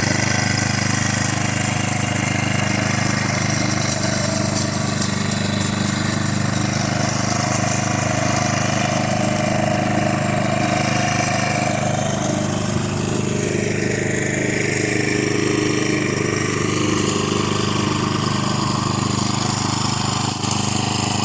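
Walk-behind petrol lawn mower engine running steadily at a constant pitch while mowing grass.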